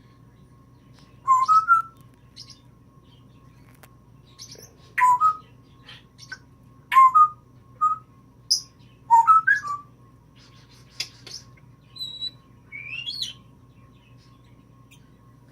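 Timneh African grey parrot giving short, scattered chirps and whistles, many bending upward in pitch, with a higher rising whistle near the end.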